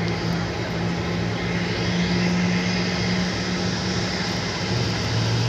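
Steady engine drone with two low hum tones, heard from inside a vehicle on an airport apron.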